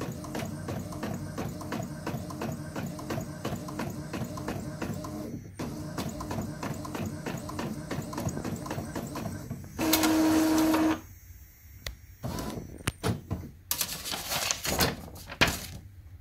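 Epson L3151 inkjet printer printing on a book page: the print head shuttles with a fast, even ticking, then a louder steady whir for about a second around the middle, followed by scattered clicks and rustles as the page is handled.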